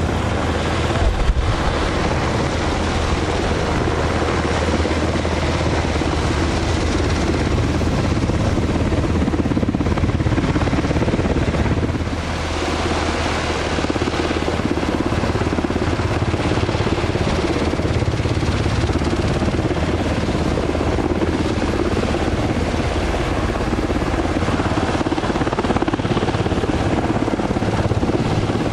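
UH-60 Black Hawk helicopter taxiing on the ground, its twin turboshaft engines and rotors running with a loud, steady noise that dips slightly about twelve seconds in.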